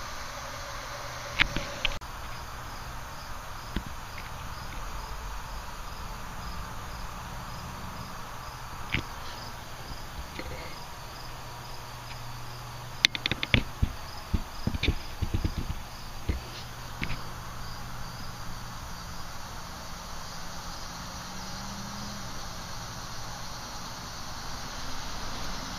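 Cricket chirping in a steady, even, high-pitched rhythm over a constant background hiss, fading out about halfway through. Sharp clicks and knocks come early and again in a cluster around the middle, and they are the loudest sounds.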